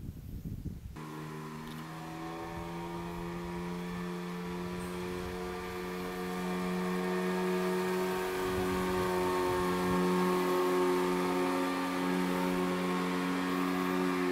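Outboard motor of a narrow river longboat running at a steady speed, a steady droning hum that starts about a second in and slowly grows louder as the boat travels along the river.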